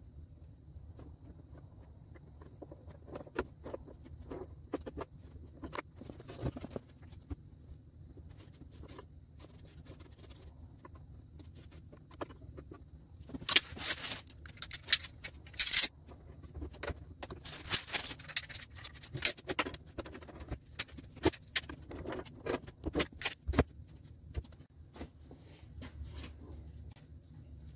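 Metal bar clamps being handled and tightened on a glued-up wood panel: scattered clicks and knocks, with a louder stretch of metallic rattling and clanking about halfway through.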